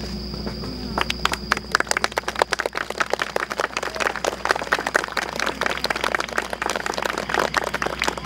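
Audience clapping, breaking out about a second in and going on through the rest.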